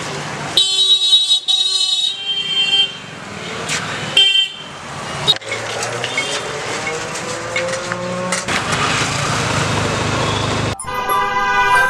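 Busy city road traffic with vehicle horns honking several times: blasts about a second in, around four seconds and again near the end. Through the middle, an engine rises slowly in pitch.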